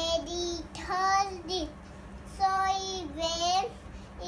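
A young girl singing in a high child's voice: three phrases of held notes that slide up and down in pitch.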